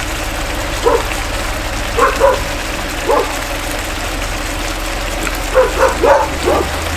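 Dogs barking in short sharp barks, about eight in three groups: one, then a few around two to three seconds in, then a quick run of four near the end. The speaker takes the barking as the dogs having smelled the meat.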